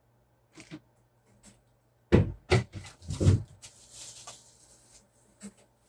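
Cardboard box and kit parts being handled: a few light clicks, two loud knocks about two and three seconds in, then a brief rustle of plastic or paper packaging.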